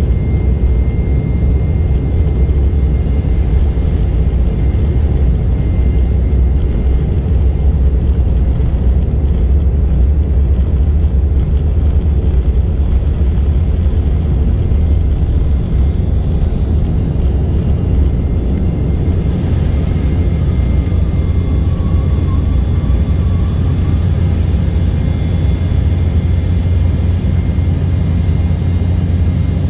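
Steady low rumble inside the cabin of an Embraer 190 airliner in flight, the hum of its General Electric CF34-10E turbofans mixed with airflow noise.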